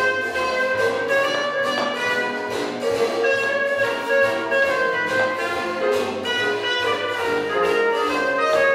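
Swing jazz playing, with horns over a steady beat.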